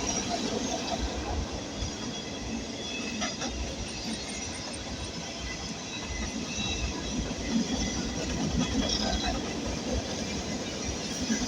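Coal train cars rolling past on the rails: a steady wheel-on-rail rumble with a few short, high wheel squeals.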